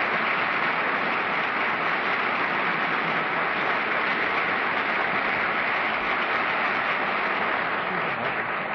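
Studio audience applauding steadily, a dense even clapping that starts to die away at the very end.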